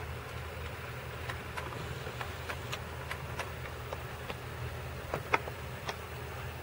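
HO scale model train running along the track: a steady low hum with irregular clicks from the wheels on the rails, a few a second, one of them louder about five seconds in.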